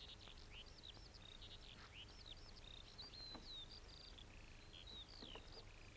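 Faint birdsong: many small birds chirping, with short whistled notes that slide up and down, over a faint low hum.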